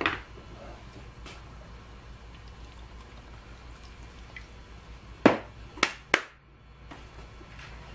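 A small plastic power-supply case clacking down on a wooden workbench at the start, then three sharp clicks a little over five seconds in as the hands handle the cable leads, over a low steady hum.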